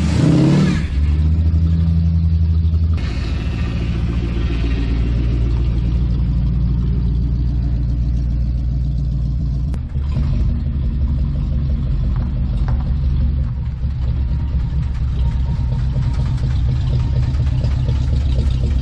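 Classic car's engine running steadily at low revs across several short takes, with some revving, as the car is driven and backed in; the exhaust leaks at its unwelded joints.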